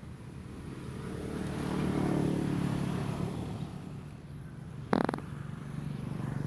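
A motor vehicle's engine passing by: a steady hum that swells to a peak about two seconds in and fades away. A brief, loud, sharp sound follows about five seconds in.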